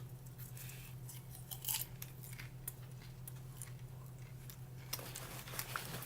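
Freshly popped microwave popcorn being handled in its paper bag: faint, scattered crinkles and crackles over a steady low hum.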